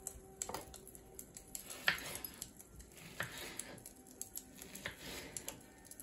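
Knife cutting a ripe peach on a plastic cutting board: about four sharp knocks of the blade on the board, the loudest about two seconds in, with short wet tearing sounds of the flesh after them.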